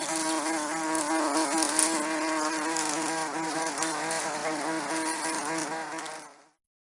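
A bee buzzing in flight: a steady, slightly wavering drone that fades out near the end.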